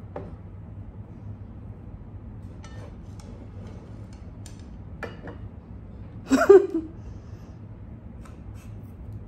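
Mouth noises of a banana being peeled with the teeth against a plate: small clicks and taps of peel, lips and plate, with one short, loud vocal sound from the eater about two-thirds of the way through.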